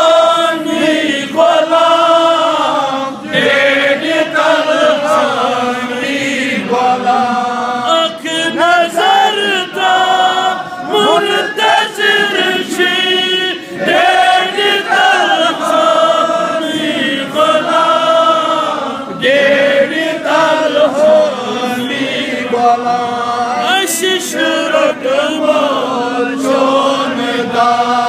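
A man chanting a devotional recitation solo, in long melodic phrases with wavering, ornamented held notes and short breaks for breath.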